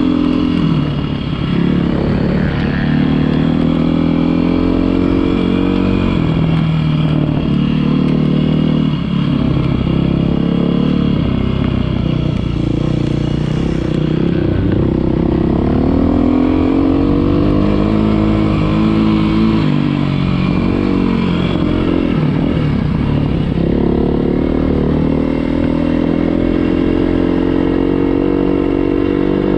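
Beta 390 RR-S single-cylinder four-stroke dirt bike engine being ridden, its pitch climbing as the throttle opens and dropping back several times as the rider accelerates and backs off.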